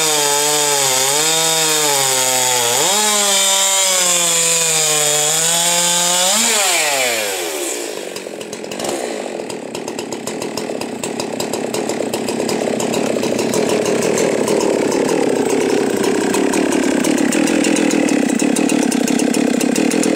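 Husqvarna 372 XP two-stroke chainsaw cutting through a log at full throttle, its pitch dipping and recovering under load. About six and a half seconds in, the throttle is released and the revs fall away. The saw then idles with a fast, even ticking that grows louder toward the end.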